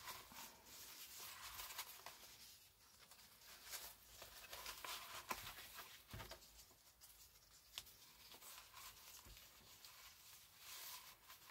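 Near silence with faint, scattered rustles and soft taps of card and paper being handled.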